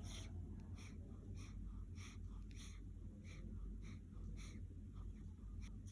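Sleeping baby breathing noisily, faint short snuffly breaths in quick succession, about three a second.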